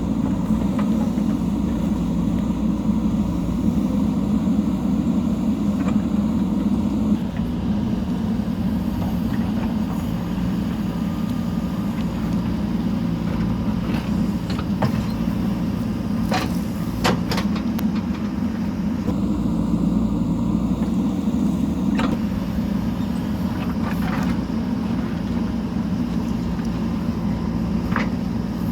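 JCB backhoe loader's diesel engine running steadily while working, with scattered sharp clicks and knocks in the middle and near the end.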